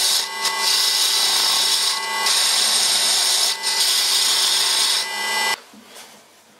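Old Auerbach Karger metal lathe running with its tool bit taking a facing cut off a ring in the chuck: a loud, steady machining noise with a few brief dips. The lathe stops about five and a half seconds in.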